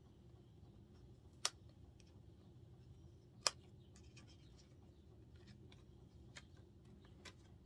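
Faint handling of a plastic foundation sample card as a foil-sealed shade compartment is peeled open: a few small sharp clicks and ticks, two of them louder and about two seconds apart, over quiet room tone.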